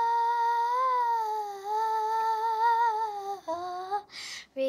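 A man's voice singing one long high note, wavering slowly in pitch, then sliding lower and breaking off about three and a half seconds in.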